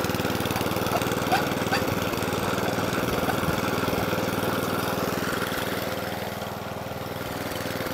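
Tecumseh engine of an Atco Balmoral 14SE cylinder mower running steadily while the mower is pushed along, a little quieter near the end. It is running slightly short of its proper revs, and the owner puts that down to the throttle cable needing adjustment.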